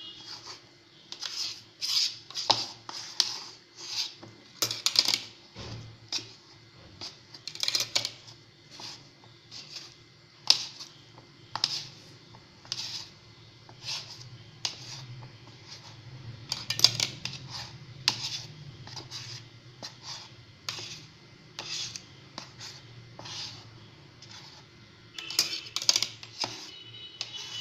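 Metal utensil stirring and scraping through damp, crumbly ragi and rice flour in a steel bowl, with quick irregular clinks against the bowl. The flour is being mixed with just-boiled water to scald it for idiyappam-style dough.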